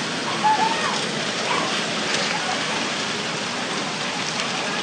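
Steady rushing noise of a flood of water and wreckage sweeping through a town, with faint scattered crackles of debris.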